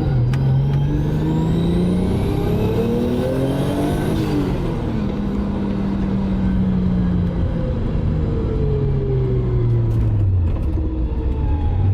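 Turbocharged 2.5-litre straight-six car engine pulling hard through a gear, its pitch climbing for about four seconds with a high whine rising alongside, then dropping at a gear change. It then runs steadily, slows with a gently falling pitch, and picks up again near the end.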